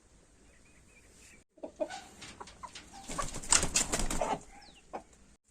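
Chickens: a few seconds of wing flapping and rustling with sharp clicks, loudest about three and a half seconds in, with faint chirps before it and a short call near the end.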